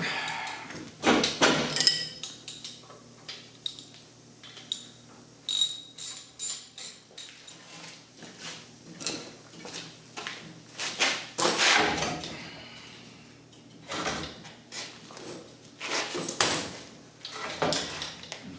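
Metal parts and tools clanking and knocking irregularly, some hits ringing briefly.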